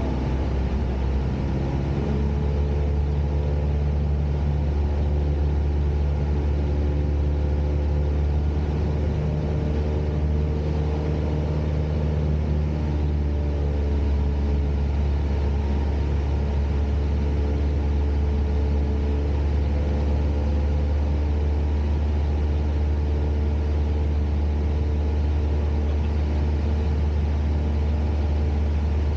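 Cessna 172's piston engine and propeller droning steadily, heard from inside the cabin, with a strong low hum and a slight shift in tone about a second in.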